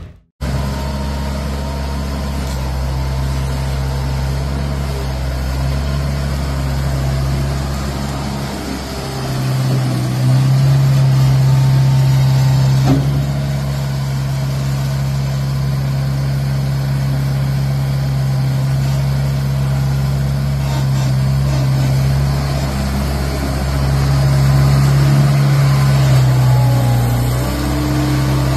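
Melroe Bobcat 642B skid steer's four-cylinder gasoline engine running steadily, its note rising and getting louder about a third of the way in and again near the end.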